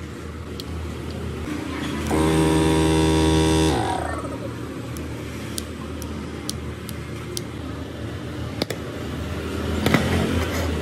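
Open-shell refrigerator compressor started through a plug-on start relay: about two seconds in, its motor starts with a loud, pitched hum, runs for under two seconds, then is cut off and winds down with a falling pitch. A couple of sharp clicks come near the end.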